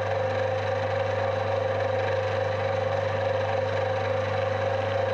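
Metal lathe running steadily with a brass workpiece spinning in the chuck: an even motor hum with a steady whine and no cutting noise.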